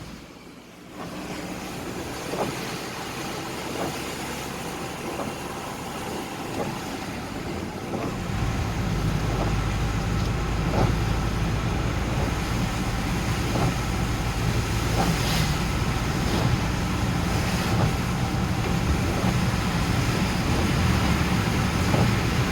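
Road traffic noise: vehicles running, with a low rumble that strengthens about eight seconds in.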